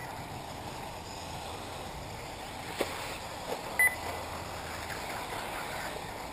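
1/8-scale electric RC off-road buggies running on a dirt track, a steady mixed whir of motors and tyres. A short knock comes just under three seconds in, and a short high electronic beep about four seconds in.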